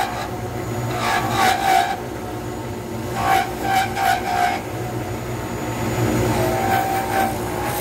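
Wood lathe running steadily, with the scraping of a turning tool cutting a spinning acrylic resin pen blank. The cutting grows louder about a second in, again around three to four and a half seconds in, and near the end, as the tool bites harder.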